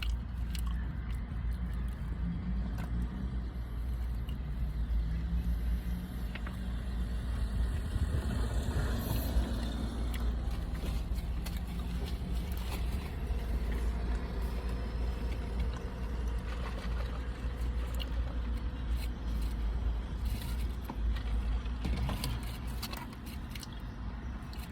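Steady low rumble of a car with its engine running, heard from inside, with scattered small clicks of chewing sticky mochi.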